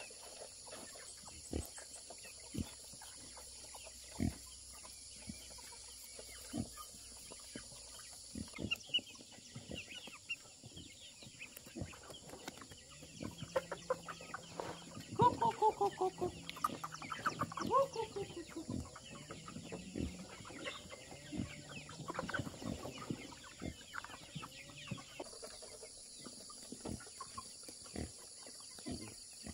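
Chickens clucking, with a run of rapid clucks loudest about halfway through, among scattered sharp clicks and taps over a steady high hiss.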